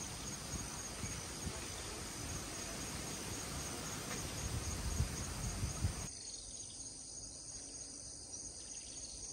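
Steady high-pitched chirring of insects, with irregular low rumbling underneath that stops abruptly about six seconds in, leaving the chirring fainter.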